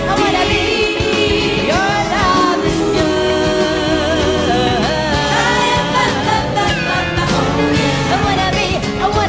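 A woman singing into a microphone with a live band, her held notes wavering with vibrato over the accompaniment.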